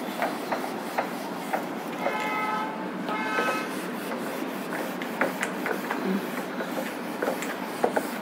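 Whiteboard duster being rubbed back and forth across a whiteboard to erase writing. It makes a scratchy wiping sound with light scattered taps, and gives two short squeaks about two and three seconds in.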